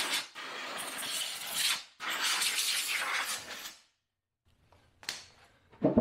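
Compressed-air blow gun on an air hose hissing in three blasts, blowing dust out of a generator's open engine compartment. A short click follows about five seconds in.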